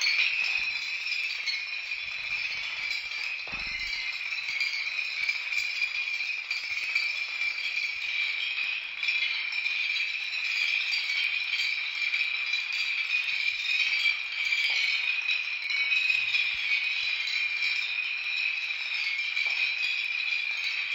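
A field of hundreds of dominoes toppling in a continuous chain reaction, making a steady dense clatter of many small clicks.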